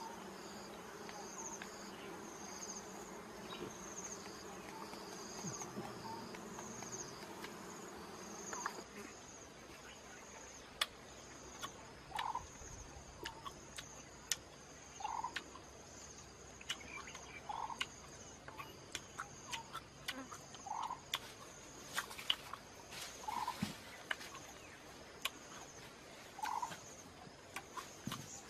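Honeybees on an exposed comb buzzing as a low hum for about the first nine seconds, over a high, rhythmically pulsing insect chirp that goes on throughout. Once the hum stops, scattered sharp clicks and a short call repeating about every three seconds are heard with the chirping.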